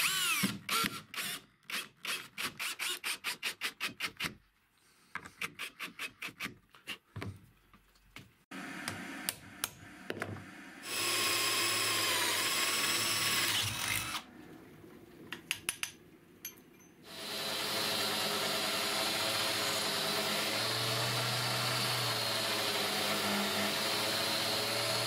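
A cordless drill drives a screw at the start, followed by runs of quick, evenly spaced scraping strokes. About eleven seconds in, a drill runs steadily for about three seconds, boring through a steel strip clamped in a vise. From about seventeen seconds a belt sander runs steadily as a small steel part is ground against the belt.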